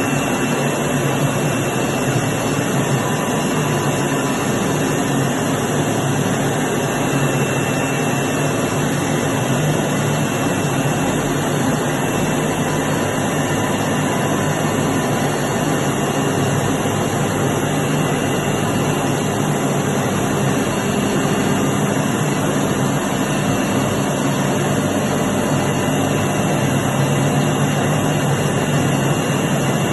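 Milling router cutting plywood, running steadily: an even cutting noise with a constant high tone over it.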